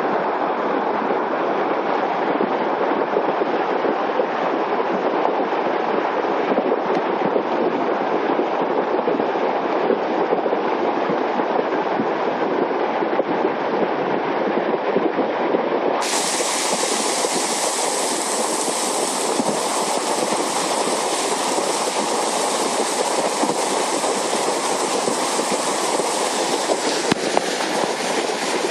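Flash-flood water rushing down a desert wash channel: a loud, steady noise of fast, muddy, debris-laden water.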